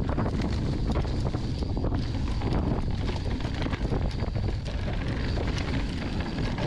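Wind buffeting the microphone of a POV camera on a mountain bike descending fast downhill, over a steady low rumble, with frequent small clicks and rattles from the bike.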